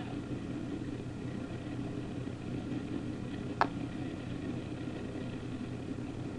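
Boat engine idling steadily, with a single sharp knock a little past halfway.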